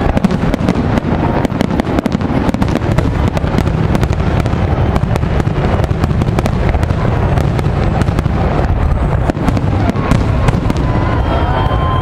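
Aerial fireworks display: a rapid, continuous barrage of shell bursts and crackling over a low, steady rumble.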